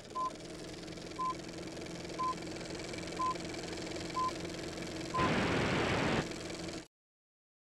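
Film-leader countdown beeps: a short high beep once a second, six in all, over a steady hum and hiss. About five seconds in, a second of loud static hiss, then the sound cuts to silence.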